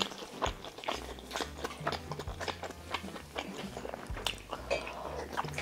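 A person chewing a mouthful of food, with many small, irregular wet clicks and smacks of the mouth.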